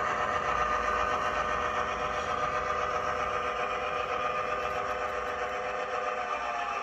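HO scale model diesel locomotive running along the track with a steady mechanical hum from its motor and running gear. The hum fades slowly as it moves away.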